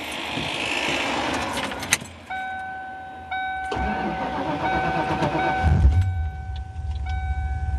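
A Ford Fox-body Mustang GT's 5.0 V8 being started for the first time after an engine fire. The key clicks and a warning chime sounds, then the starter cranks for a couple of seconds and the engine catches about halfway through and keeps running.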